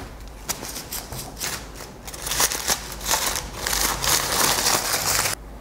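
Paper being handled and crumpled in the hands: a few sharp crinkles at first, then about three seconds of dense crumpling that stops abruptly near the end.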